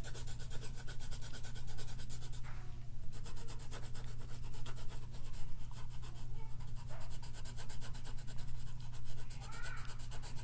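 Rapid back-and-forth coloring strokes on paper, a fast scratchy scribble as an area of the drawing is filled in, over a steady low hum.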